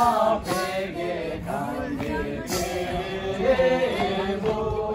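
A group of voices singing a chant-like folk song together for a circle dance, with long held notes that step up and down.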